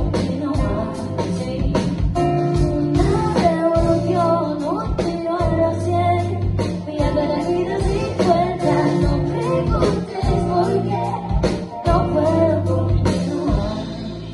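Live rock band: a woman singing over electric guitar, bass guitar and a drum kit keeping a steady beat.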